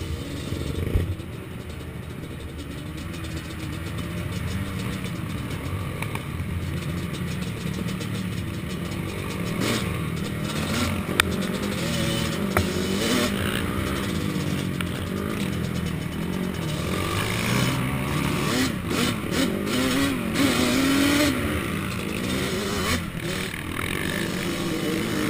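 Racing ATV's engine heard from the rider's helmet camera, revving up and down with the throttle over a rough dirt track, its pitch rising and falling continually, with wind rush on the microphone and occasional clattering knocks.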